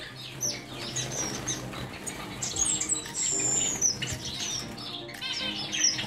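A mixed cage of small finches, Gouldian, owl and cutthroat finches among them, chirping with many short high calls, and one longer falling whistle a little after three seconds in. Wings flutter as birds fly about the cage.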